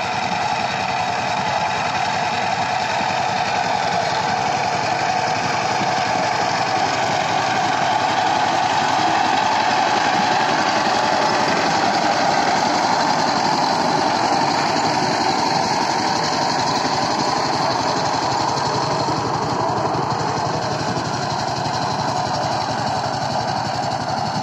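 Single-cylinder Changchai diesel engine of a walking tractor (power tiller) running steadily under load while its rotary tiller works the soil, a fast even beat throughout. It gets louder for several seconds midway.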